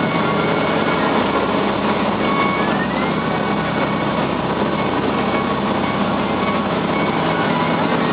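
An engine running steadily, with a brief rising tone about three seconds in.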